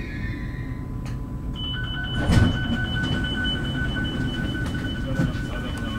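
An X60B commuter train's door-closing warning signal starts about a second and a half in: a rapid, steady beeping of two high tones that continues. The train's equipment rumbles low underneath, and there is one loud thump a little over two seconds in.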